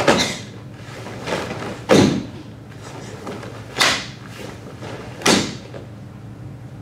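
Sharp snaps and thumps of karate kata techniques, the gi and bare feet striking on a wooden floor in an echoing hall: four strong hits about one and a half to two seconds apart, with a fainter one between the first two.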